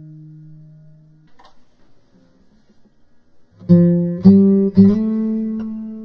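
Background guitar music: a held note fades away, a short near-quiet gap follows, then three strummed chords come about half a second apart and ring on.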